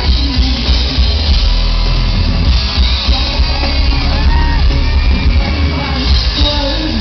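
Loud live pop music played through a concert PA in a large hall, with singing voices and shouts over a heavy bass beat.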